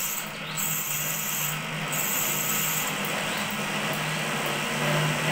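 Gas-heated cotton candy machine running, with a steady motor hum under a broad hiss.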